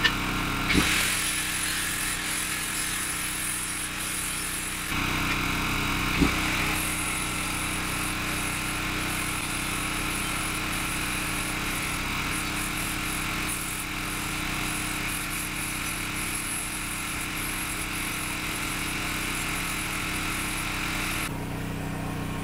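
Electric angle grinder running and grinding paint off a painted steel implement frame down to bare metal, to prepare it for welding: a steady whine with grinding noise. The grinding stops near the end, leaving a lower steady hum.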